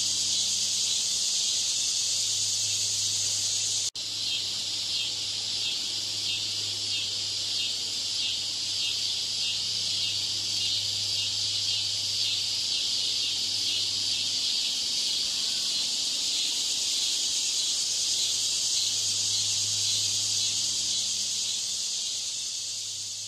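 Steady, dense high-pitched chirring of insects, cricket-like, with a fast even pulse, over a low steady hum. It breaks off for an instant about four seconds in and begins to fade near the end.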